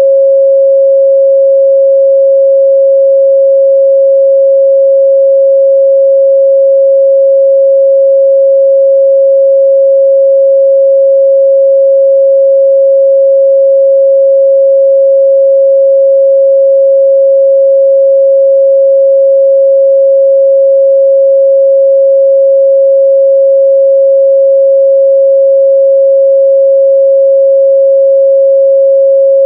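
A steady, loud 545 Hz sine-wave test tone, one pure pitch held without change, as used to check the midrange response of speakers and headphones.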